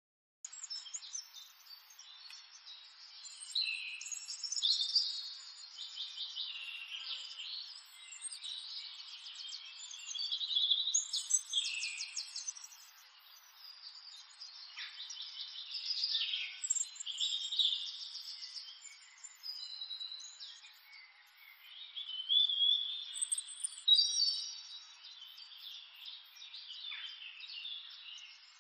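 Birds chirping and trilling in a busy chorus that swells and fades in bursts, thin-sounding with no low end.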